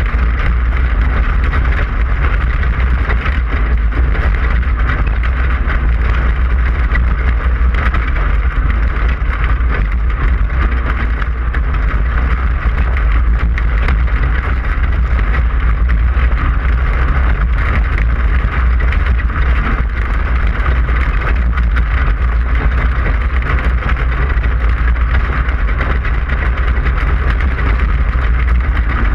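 Class 5/1600 race car's air-cooled 1600cc VW flat-four engine running hard and steadily at race speed over a heavy, deep rumble.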